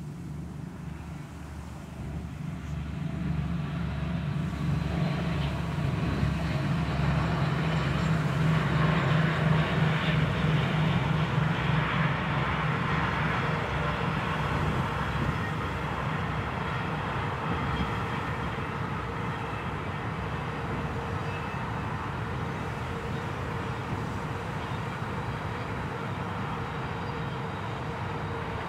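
A DB class 218 diesel-hydraulic locomotive passes at speed, its engine throbbing loudest about ten seconds in. It is followed by the steady rolling of a long train of double-deck car-carrier wagons, which slowly fades as the train goes by.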